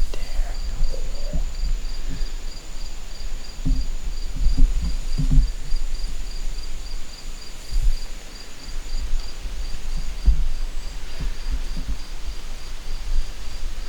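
Crickets chirping in an even, steady pulse of a few chirps a second, with a second insect's thin, steady trill above it that fades out about two-thirds of the way through. A few soft low thumps lie underneath.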